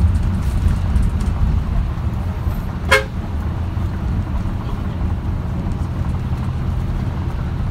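Steady low rumble of a vehicle on the move. About three seconds in, a horn gives one very short beep.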